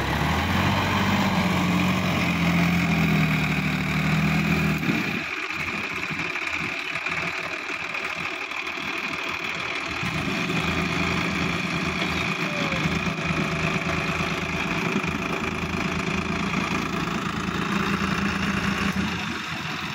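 Sonalika DI-50 RX tractor's diesel engine running under load as the tractor climbs out of flooded paddy mud over a grass bund. The engine note is steady, turns uneven for a few seconds from about five seconds in, and settles back to a steady note about ten seconds in.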